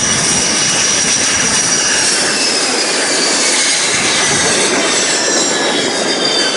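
CASA C-295M transport's twin Pratt & Whitney PW127 turboprop engines running on the ground with the propellers turning: a loud, steady rush with a high whine that slides slowly lower from about two seconds in.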